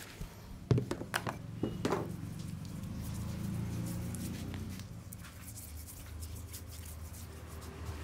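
A small wooden-backed brush scrubbing bare, lotion-covered skin in quick scratchy strokes, after a few sharp clicks and taps in the first two seconds.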